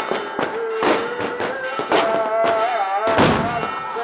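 Fireworks and firecrackers going off in rapid, irregular bangs and crackles, the loudest about three seconds in, over a held, wavering melody.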